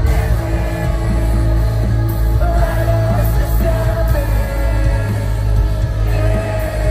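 A rock band playing loud live through a stadium PA, with electric guitar, heavy bass and singing.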